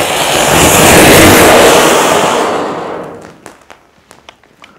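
Anar (flowerpot fountain firework) spraying sparks with a loud rushing hiss that swells about a second in and dies away by about three seconds, leaving scattered faint clicks.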